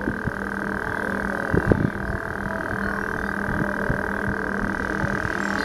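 A steady background hum and hiss, with a couple of soft low thumps about one and a half seconds in.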